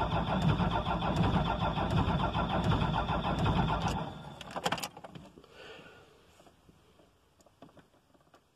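Starter cranking a cold Cummins diesel pickup engine, a fast steady churn that stops abruptly about four seconds in without the engine catching. A few clicks and faint handling sounds follow.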